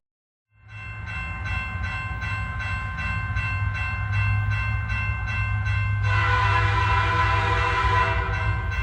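A steady low rumble under a chord of sustained horn-like tones. The horn chord gets louder, with a hiss, for about two seconds near the end.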